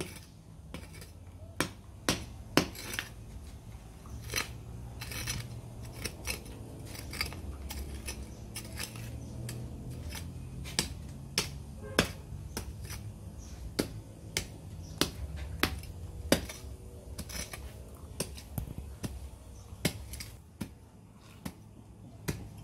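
A small hand hoe chopping into dry, clumpy soil. It gives repeated sharp strikes at an uneven pace, about one or two a second, over a steady low rumble.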